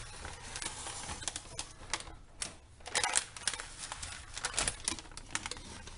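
Freezer paper crinkling and crackling in irregular snaps as it is peeled off a loaf of cold process soap.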